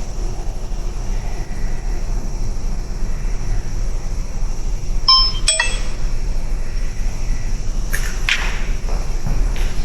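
A short ringing metallic clink about five seconds in, then two sharp knocks near the end, over a steady low rumble.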